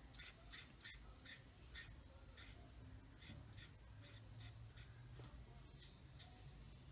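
Faint, uneven strokes of a Stampin' Blends alcohol marker colouring on cardstock: soft short scratches, several a second at first and then more spaced out.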